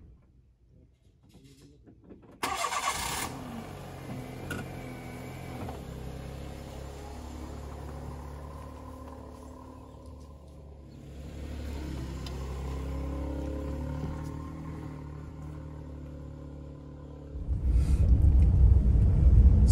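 A car's engine starting with a short loud crank a little over two seconds in, then running steadily as the car pulls away over a dirt track, swelling and fading. Near the end the sound jumps to a louder, lower drone of the engine heard from inside the cabin while driving.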